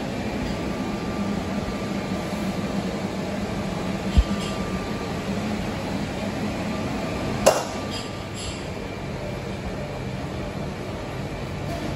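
Steady hum of restaurant room ambience, with a dull thump about four seconds in and a sharp clink, like china or glass, about seven and a half seconds in.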